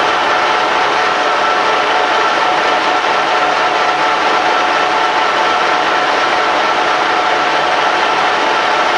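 Colchester Triumph 2000 lathe running under power, its headstock gearbox and feed drive giving a steady mechanical running noise with a constant whine.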